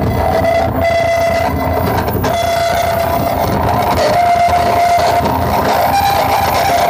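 Loud live noise music: a dense wash of distorted noise under a held, horn-like tone that steps up in pitch twice.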